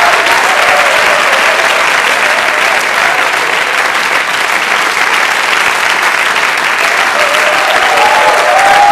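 Large theatre audience applauding steadily, dense clapping with no break, with a few voices calling out over it near the end.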